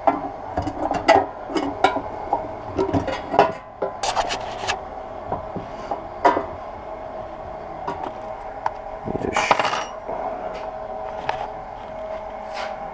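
Hand tools clinking and knocking on a sheet-metal battery box tray as a screwdriver and open-end wrench loosen a bolt and small parts are handled, in many short, sharp clicks. A longer scrape comes about nine seconds in.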